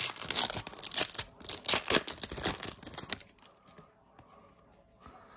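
A Yu-Gi-Oh booster pack's foil wrapper being torn open and crinkled: a rapid run of ripping and rustling that stops about three seconds in, followed by a few faint ticks.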